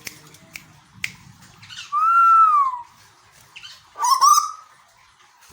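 Male Asian koel (tuwu) giving two loud whistled calls: one that arches up and falls away about two seconds in, and a shorter rising one about four seconds in. A few sharp ticks come before them in the first second.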